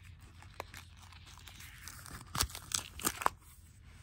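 Thick sticker-covered paper pages of a spiral-bound journal being turned and handled: rustling and crinkling, with a few sharp crackles about two to three seconds in.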